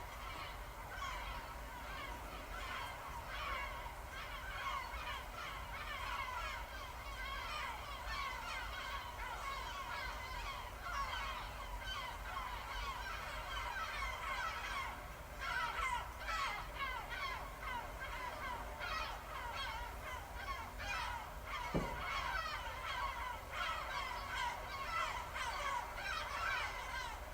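Seagulls calling in a recorded sleep soundscape: many gulls, their short gliding cries overlapping at different pitches, one starting and the others joining in.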